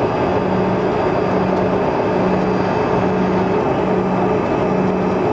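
Cabin noise of a Bombardier CRJ-200 taxiing: the steady sound of its rear-mounted General Electric CF34 turbofans at low thrust, with a low hum that pulses on and off about once a second.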